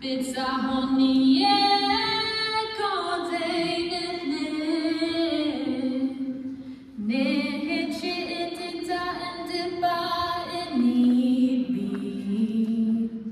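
A voice singing unaccompanied, a slow chant-like song in long held notes that glide between pitches, with a short break about seven seconds in.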